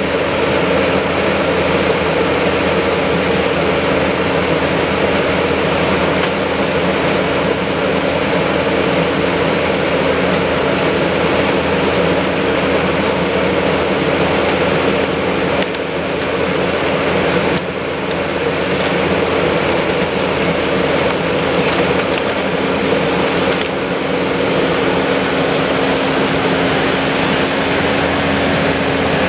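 Kubota SVL compact track loader's diesel engine running steadily with a constant hum as it works a grapple.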